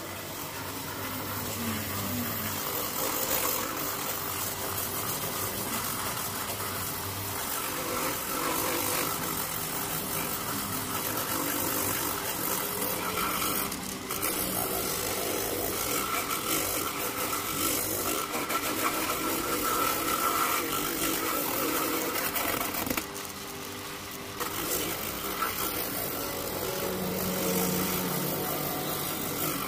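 Handheld rotary buffer with a disc wheel grinding the rubber of a tractor tire's inner sidewall, buffing around the impact damage to prepare it for a patch: a steady grinding hiss and whine that eases off briefly about three-quarters through.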